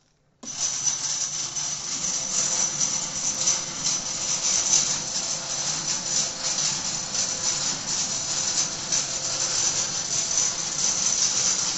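Electric chain hoist lifting a heavy bale, starting abruptly just under half a second in and running steadily: a steady high-pitched tone over a busy rattling noise as the load chain runs through the hoist.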